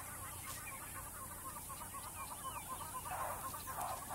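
A flock of ground birds clucking: a quick steady run of short clucks, several a second, with louder rasping calls about three seconds in.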